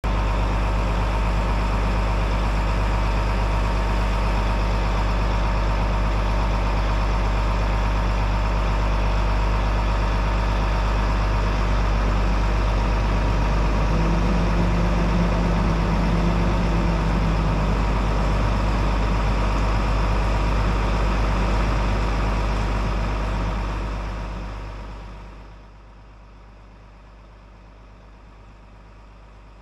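Crane lorry's diesel engine running steadily, with a deep rumble and a steady whine. A lower hum joins for a few seconds about halfway. The sound fades down to a faint background near the end.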